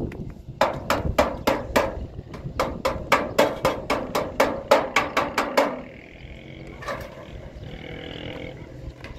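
A rapid, even series of hard knocks, about three to four a second, for some five seconds. Then it stops and a faint, wavering pitched sound follows.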